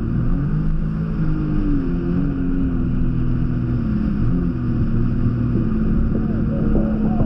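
Jet ski engine running, its pitch rising and falling with the throttle, then holding steady near the end.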